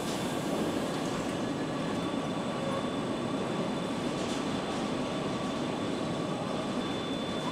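Steady factory-hall machinery noise, an even rumbling hiss with a faint constant high whine through it.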